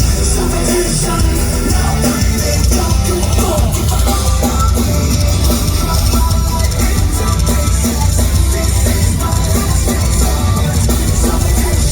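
Loud heavy rock music played by a live band: pounding drums, distorted guitars and bass, and constant cymbal wash.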